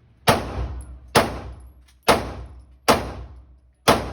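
Five gunshots fired one after another at a steady pace, about one a second, each sharp crack trailing off in a short echo.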